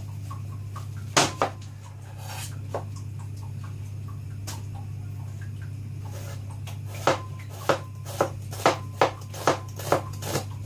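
Kitchen knife chopping a red onion on a cutting board: two knocks about a second in, then from about seven seconds a steady run of chops, roughly two a second. A steady low hum runs underneath.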